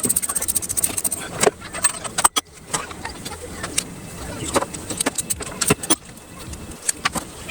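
Scattered metallic clicks and clinks of hand tools and small engine parts being handled, at irregular intervals.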